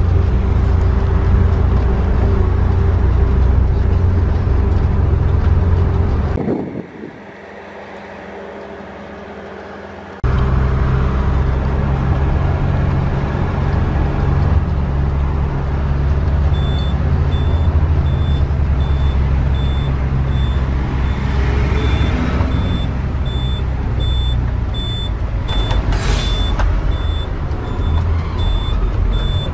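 Motorhome engine running under load on a steep uphill climb, heard from inside the cab as a loud low rumble. The rumble drops away about six seconds in and comes back suddenly about four seconds later. From about halfway through, a series of short high beeps repeats at an even pace.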